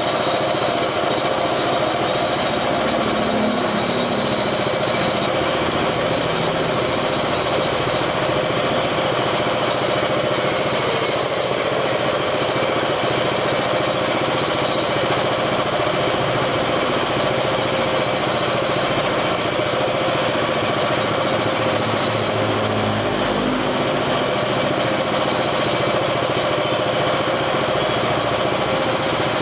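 Piston air compressor running steadily, feeding a paint spray gun.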